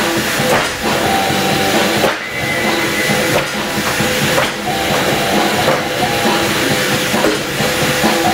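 Loud, dense rock music soundtrack with a hissy, wall-of-noise texture.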